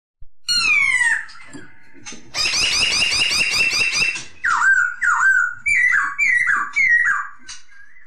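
Black-throated laughingthrush (poksay Hongkong) singing: a falling whistle, a fast rattling trill lasting about two seconds, then a run of loud downslurred whistled notes, two and then three.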